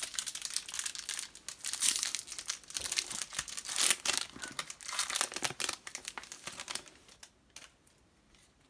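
Foil wrapper of a Yu-Gi-Oh! trading-card booster pack being torn open and crinkled by hand: a dense crackling that dies away about seven seconds in.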